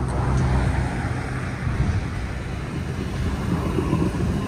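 Tram pulling in alongside the platform: a steady low rumble and hum, with a faint high whine near the end.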